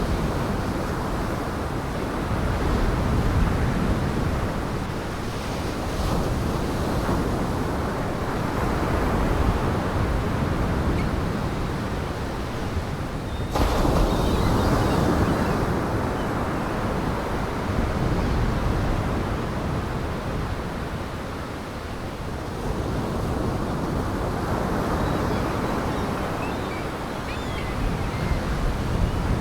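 Heavy surf breaking in gale-force wind, with wind buffeting the microphone: a continuous roar that swells and eases, jumping suddenly louder about halfway through.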